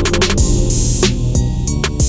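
Music with a steady drum beat over a bass line.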